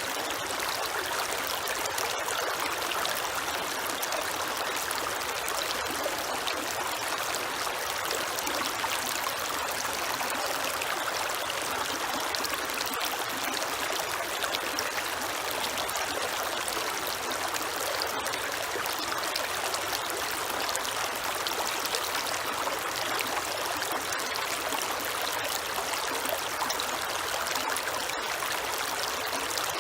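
A creek flowing and trickling over stones in a steady, unbroken rush of water.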